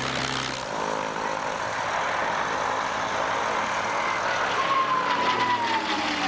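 Piston engine of a WWII propeller fighter running, then the plane flying past overhead, its engine note falling in pitch near the end as it goes by.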